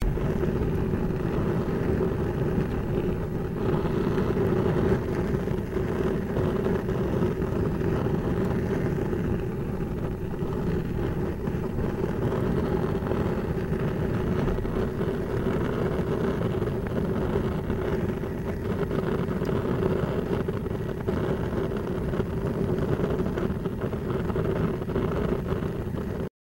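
Propane barbecue grill burners burning steadily: a constant rushing flame noise with a steady hum in it.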